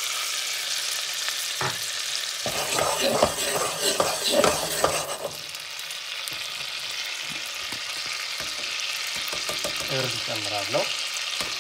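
Butter sizzling and bubbling in a stainless steel pot as it melts over garlic and ginger peels and rosemary. A spatula stirs it, knocking and scraping against the pot from about two to five seconds in.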